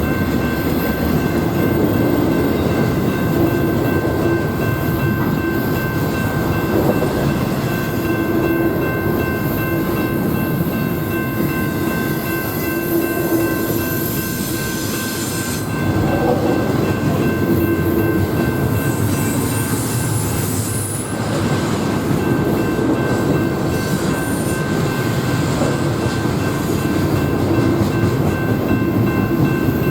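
Freight train cars rolling steadily past on the rails, a continuous loud rumble with thin, steady high ringing tones over it and a brief high squeal a little past two-thirds of the way through.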